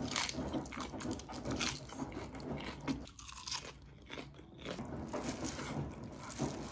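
A person chewing a mouthful of food, with irregular crunching clicks.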